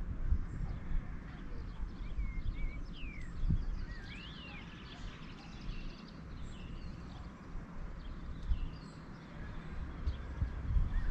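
Birds chirping, with short calls that glide up and down in pitch, clearest a few seconds in, over a continuous low rumbling noise.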